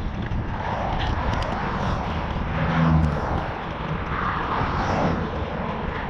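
Wind rumbling on the microphone while riding, with road traffic passing; a vehicle's engine hum swells briefly about three seconds in.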